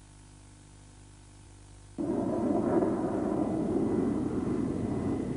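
A faint steady hum for about two seconds, then a steady rushing outdoor noise starts suddenly and carries on.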